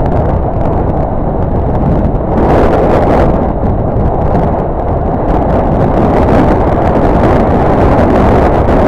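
Loud, steady wind buffeting on the microphone of a camera mounted on a Ducati Multistrada motorcycle riding at speed, mixed with the bike's running and road noise.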